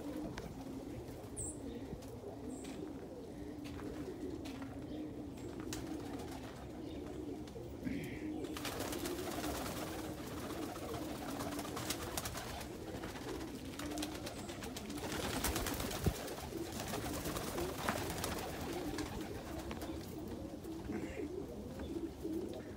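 Domestic pigeons cooing steadily in a loft, a continuous low wavering murmur. From about a third of the way in, wing flapping and rustling as birds take off and land join it, with a few sharp ticks.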